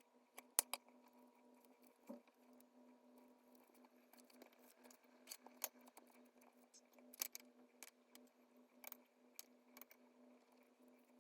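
Faint, scattered small clicks and taps at irregular intervals over a steady low hum.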